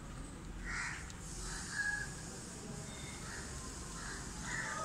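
A series of short animal calls: one about a second in, another just under two seconds in, then several in quick succession in the last second and a half.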